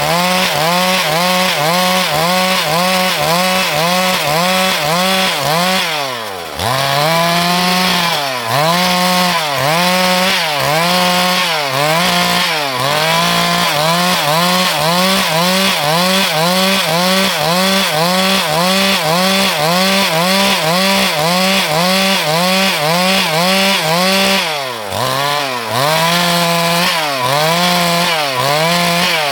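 Stihl MS 382 two-stroke chainsaw running at high revs under load while cutting wood. Its engine pitch dips and recovers about twice a second as the chain bites. The revs drop sharply twice, about six seconds in and near the end, then climb again.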